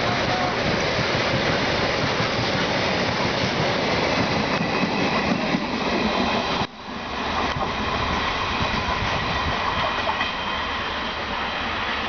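Container freight train rolling past at speed on the next track: a steady rumble and clatter of wagon wheels on the rails. About two-thirds in the sound drops out abruptly, then comes back as a lighter rolling noise.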